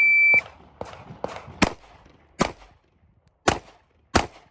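A shot-timer beep, then four 9mm shots from a Glock 26 subcompact pistol, fired as two pairs about three-quarters of a second apart.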